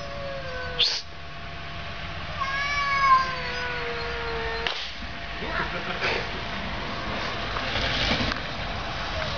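Two domestic cats caterwauling at each other in a standoff: long, slowly falling yowls, the longest drawn out for about two seconds starting a couple of seconds in. Later come a few short, harsh noisy bursts.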